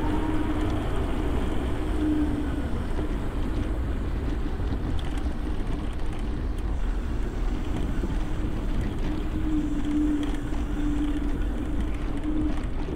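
Wind buffeting a handlebar-mounted action camera's microphone while riding an electric scooter or e-bike, with tyre rumble and a steady electric motor hum that fades in and out, strongest in the last few seconds.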